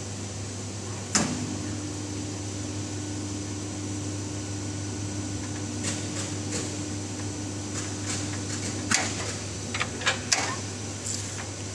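Bench hot-bar welding press humming steadily while it welds waterproof zipper tape. A sharp click about a second in starts a faint steady tone that stops near nine seconds, followed by a few sharp clicks.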